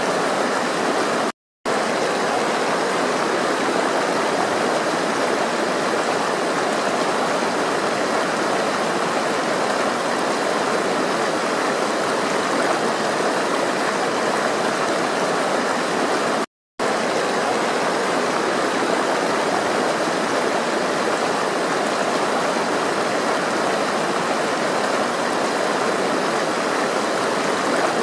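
Steady rushing of flowing water, like a stream, with no change in level. It cuts out to silence for a split second twice, about a second and a half in and again about sixteen and a half seconds in.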